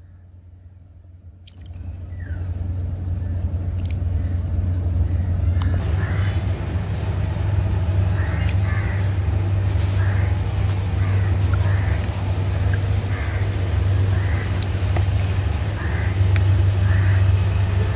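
Outdoor ambience: a steady low hum comes in about a second and a half in. From about seven seconds in, a high, short chirp repeats about twice a second.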